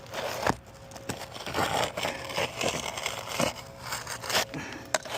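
An asphalt roof shingle being cut down by hand and handled, giving irregular scraping and crackling strokes with a few sharp snaps.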